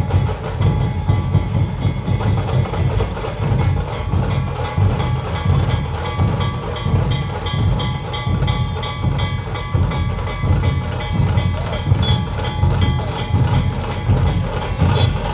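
Loud dhol-tasha drumming: a fast, steady, unbroken rhythm of many quick strokes over deep drum beats.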